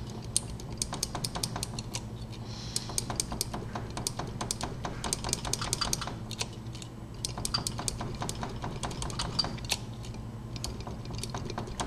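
Key blank being turned and bounced up and down in the keyway of a Slaymaker wafer padlock: rapid, irregular metallic clicks and rattles as the wafers bind against the filed key edge, impressioning marks into it. A steady low hum lies under the clicks.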